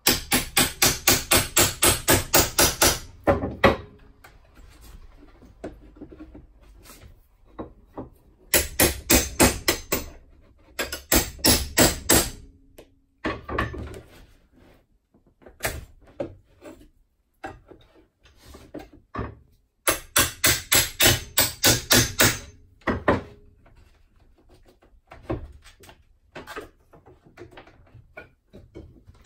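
Hand hammer striking the wooden light box, or a tool set against it, in quick runs of rapid, evenly spaced blows, about five a second, separated by pauses. Fainter knocks and scraping of wood come in between.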